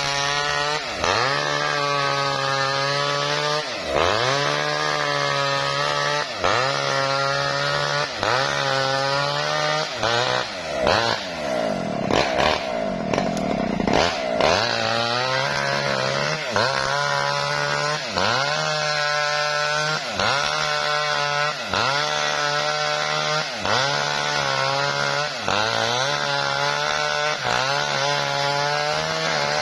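Maestro mini chainsaw ripping a lamtoro (leucaena) log lengthwise. The engine note drops under load and climbs back in a regular rhythm about every second and a half as the bar is worked through the cut. From about 11 to 15 seconds in it eases to a lower, steadier run, then the cutting resumes.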